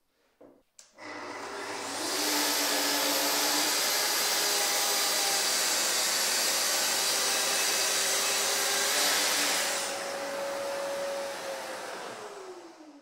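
Festool plunge-cut circular saw on its guide rail, with its dust extractor running, cutting a straight reference edge along an MDF panel. It starts about a second in and cuts loudly with a high whine for about eight seconds. Then it drops in level and winds down with a falling pitch near the end.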